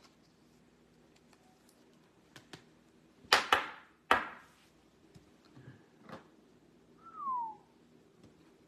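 Tabletop card-handling sounds: light clicks and rustles, two loud sharp taps a little over 3 s in and another just after 4 s, and a short squeak falling in pitch about 7 s in, over a low steady hum.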